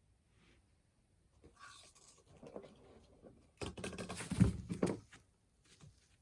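Corgi snoring in its sleep: a quieter rough snore about a second and a half in, then a louder one about three and a half seconds in.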